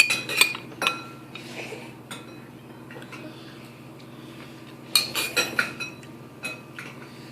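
Cutlery clinking against bowls: a cluster of sharp, ringing clinks at the start, a quieter stretch, then another cluster about five seconds in and a few more near the end.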